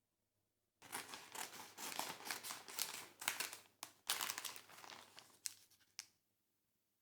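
Packaging or wrapping being crinkled and handled: a dense run of crackles starting about a second in and lasting about five seconds, then stopping.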